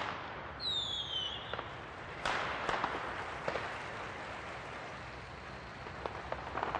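Steady rushing noise of a truck-mounted fog cannon's fan blowing water mist, with a brief falling whistle about a second in and a few scattered sharp pops.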